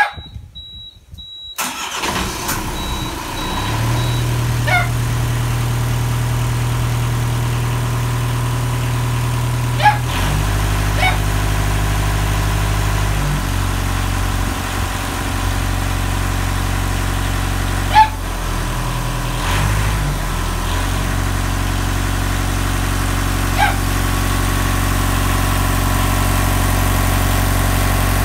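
A widebeam canal boat's inboard diesel engine starting first time after nine months laid up. A high steady beep stops about two seconds in as the engine catches, and it settles into a steady idle. Its note shifts a few times as it runs.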